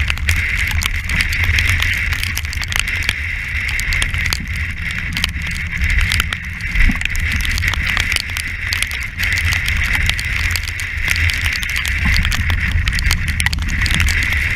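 Strong wind buffeting a deck-mounted camera's microphone on a yacht heeled in heavy weather, with a steady hiss of rushing water. Spray spatters against the camera housing as many small ticks.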